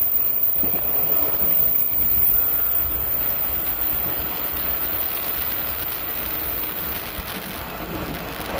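Rushing wind and running noise of a JNR 185 series electric train at speed, heard through a wide-open window while it runs through a tunnel. The noise is loud and steady and eases off gradually.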